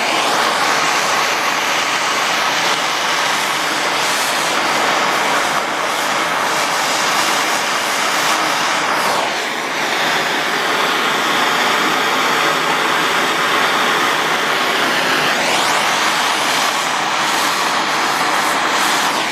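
Handheld soldering torch flame burning with a steady hiss while heating a copper pipe joint for soldering, dipping briefly about halfway through.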